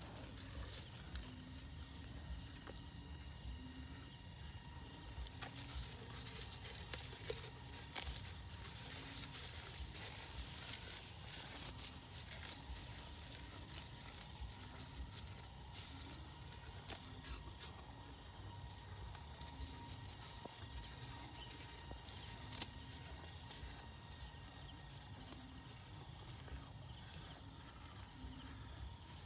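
Insects chirping in a fast, steady, high-pitched pulsing trill, with a low call repeating a little faster than once a second beneath it. A few short sharp clicks stand out, two of them close together about a third of the way in.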